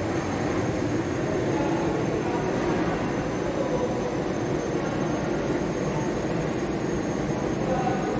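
Train rumbling steadily, with a faint thin high whine above it.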